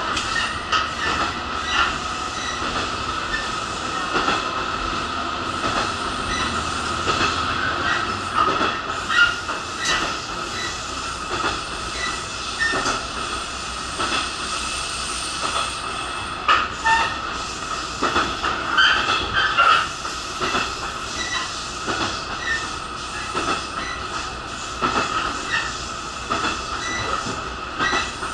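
Cabin noise of a JR Shikoku 1500-series diesel railcar running on the line: a steady rumble with a high, steady whine and irregular clacks as the wheels pass over rail joints.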